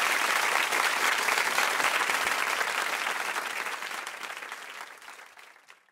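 A crowd of partygoers applauding, a dense patter of many hands clapping that fades away over the last few seconds.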